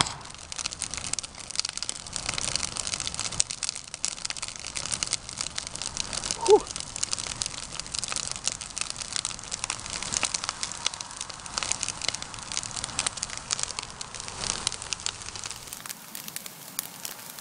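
A large bonfire of stacked firewood, lit with oil and newspaper, burning in full flame with dense, continuous crackling and popping. A single brief squeak stands out about six and a half seconds in.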